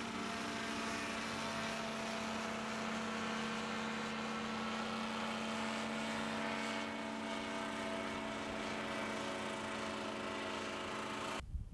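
Sky Pup ultralight in flight, its single-cylinder two-stroke engine and propeller droning steadily at cruise power. The sound cuts off suddenly near the end.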